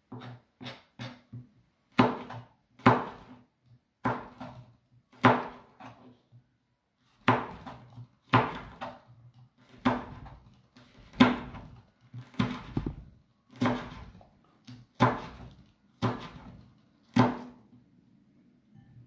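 Kitchen knife chopping fresh red chili peppers on a plastic cutting board: a few quick light taps at first, then sharp knocks of the blade on the board about once a second.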